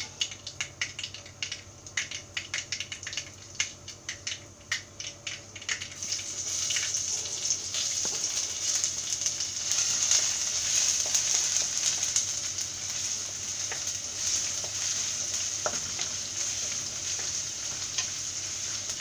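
Mustard seeds popping in hot coconut oil in a clay pot, a run of sharp separate crackles. About six seconds in, chopped ginger and garlic go in and the oil breaks into a steady sizzle while a wooden spatula stirs them.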